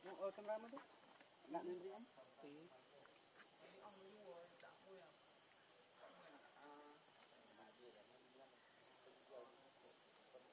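Faint, steady chorus of insects with an evenly pulsing high trill. A few faint, short voice-like calls sound in the first two seconds, and weaker ones come now and then after.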